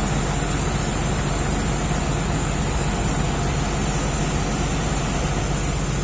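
Heavy diesel engines running steadily at a constant pitch, with a steady hiss over the hum.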